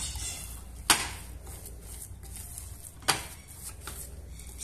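Metal spoon stirring and scraping a thick oat-flour dough in a ceramic bowl, with two sharp clinks of the spoon against the bowl, about a second in and again about three seconds in.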